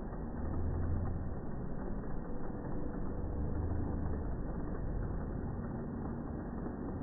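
Steady low rumble and noise of N-gauge model trains running on a layout.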